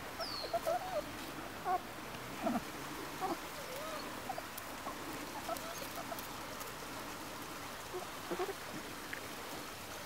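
Five-week-old Labrador puppies squeaking and whining in short, scattered yips as they play, with a single high falling whistle near the start.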